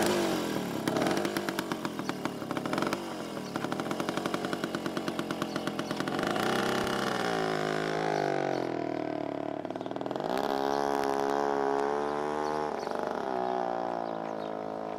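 Small motorcycle with two riders pulling away, its engine rattling at first, then rising in pitch twice as it picks up speed, and getting quieter near the end as it rides off.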